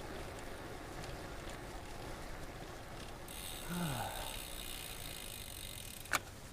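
Bicycle being ridden along a road: steady rolling and wind rumble on the microphone. A high hiss joins a little after three seconds in, there is a short falling low tone around four seconds, and a single sharp click comes near the end.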